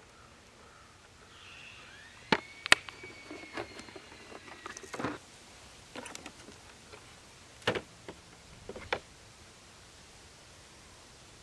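Sharp clicks and knocks of a wooden tool box being handled and opened, a set of wood-turning lathe chisels inside. A thin rising tone holds for a couple of seconds under the first knocks.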